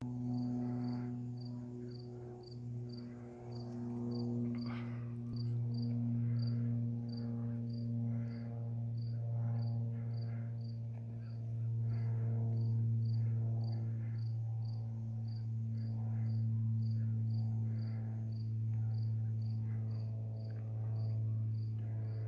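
Insect chirping steadily outdoors, about two short high chirps a second, over a steady low hum.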